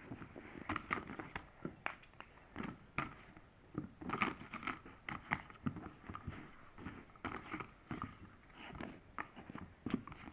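A set of picture cards being spread out one by one on a surface: a string of light, irregular taps.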